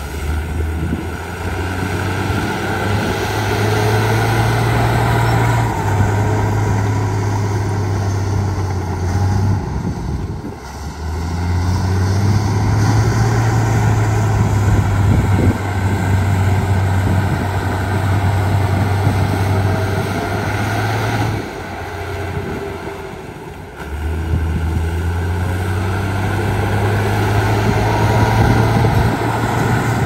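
Diesel engines of heavy earthmoving machinery running under load. The low engine note shifts in pitch several times and drops away briefly twice.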